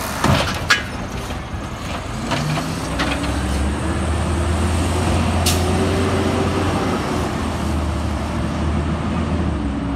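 Peterbilt 320 side-loading garbage truck with a compressed-natural-gas engine: a couple of sharp clunks within the first second as the automated arm sets the cart down, then the engine revs and drones with slowly rising pitch as the truck pulls away. A brief hiss comes about halfway through.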